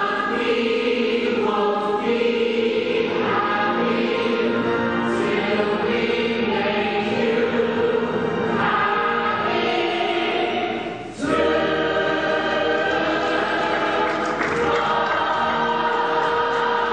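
Stage musical company singing the finale together in chorus, many voices at once, with a brief dip about eleven seconds in.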